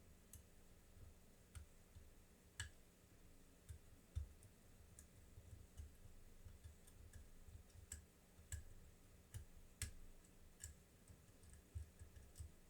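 Sparse, irregular faint clicks of a lock pick and tension tool working the pin stack inside a lock, with jiggling to test the pin states.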